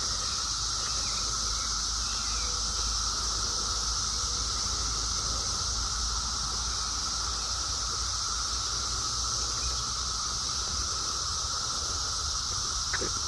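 Chorus of Brood X periodical cicadas: many males singing at once, blending into a constant, even whooshing drone with no breaks.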